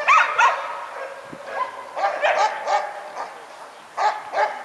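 A dog barking in short runs: two barks at the start, about four in a row a couple of seconds in, and two more near the end.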